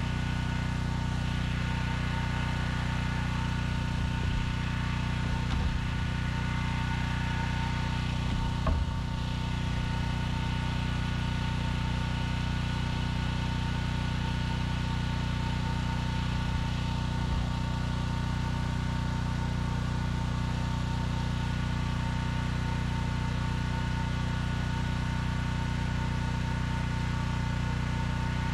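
Steady machine hum with a pulsing low drone, like a small engine running without change. A few light knocks, the clearest about nine seconds in.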